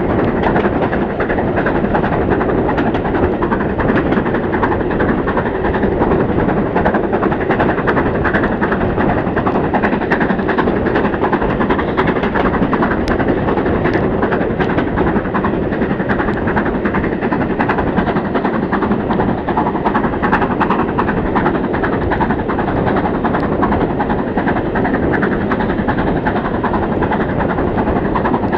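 Train noise from a carriage window behind BR Britannia class 4-6-2 steam locomotive 70013 Oliver Cromwell working at speed: a steady loud rush of exhaust, wheels and wind on the microphone. Scattered sharp clicks are char thrown out of the smokebox hitting the camera.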